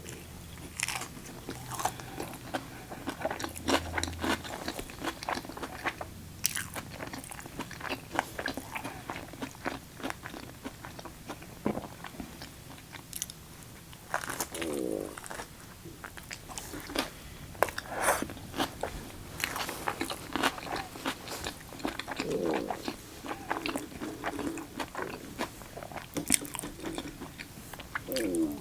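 Close-up eating sounds: wet chewing and crunching of a chicken Caesar wrap and crispy fries, with irregular clicks throughout. A few short, low, wavering gurgles of stomach noise come through about halfway in, again later, and near the end.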